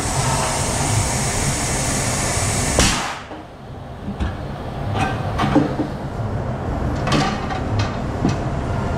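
Knocks and thumps of a tire on a steel wheel being handled and set onto a tire-changing machine, several sharp knocks in the second half. Before that a steady rushing noise runs and cuts off abruptly about three seconds in.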